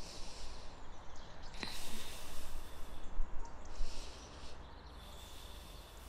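A woman breathing audibly close to the microphone while holding a yoga pose, with two longer breaths swelling about two seconds and three to four seconds in, over faint outdoor background noise.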